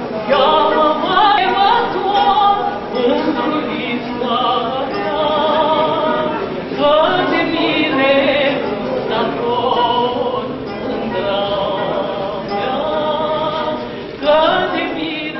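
A woman singing a Romanian folk song in a full voice with vibrato, accompanying herself on a plucked lute.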